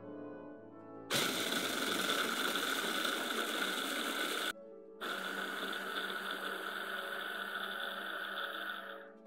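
Electric food processor running with its blade grinding chocolate biscuits to fine crumbs, a loud steady motor whine. It starts about a second in, stops for half a second just before the middle, then runs again until just before the end.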